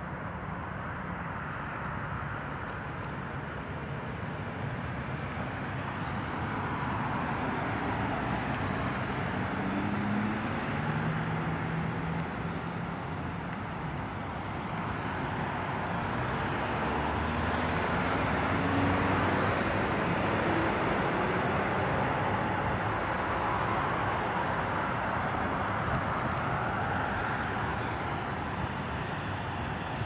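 Road traffic: the tyre and engine noise of passing vehicles, swelling and fading several times as they go by.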